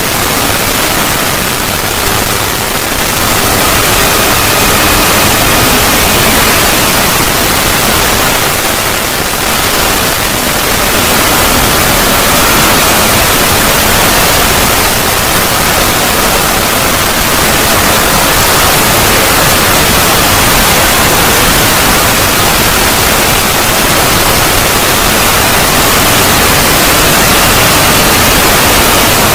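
Loud, steady static-like hiss filling the whole range, with a faint high whine running through it from a few seconds in.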